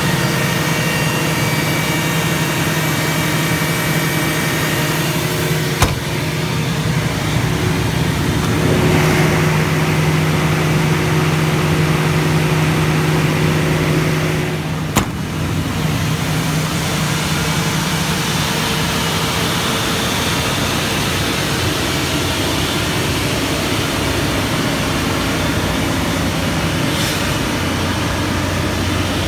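Cummins 600 hp diesel engine of a Doosan 1500 CFM towable air compressor running steadily at an even pitch, driving the compressor while it is loaded. A sharp click about six seconds in and another around fifteen seconds.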